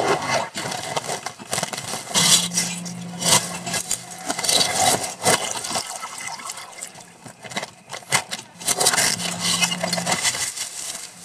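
Audience noise: faint voices with scattered claps and sharp clicks at irregular times, with no music.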